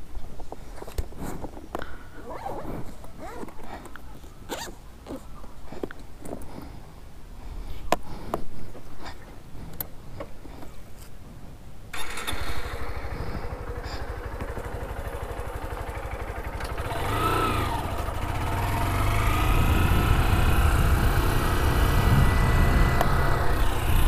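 Scattered handling clicks and knocks, then a motorcycle engine starts suddenly about halfway through and keeps running, growing louder over the last third.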